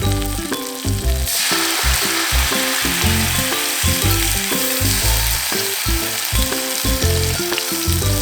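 Food frying in a copper pan: a steady sizzle that grows much louder about a second in. Background music with a regular rhythm of low notes plays underneath.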